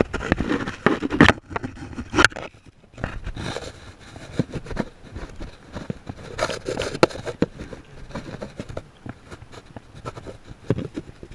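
Irregular clicks, scrapes and rustles from a spinning rod and reel being worked as a hooked fish is reeled in close, loudest in the first couple of seconds.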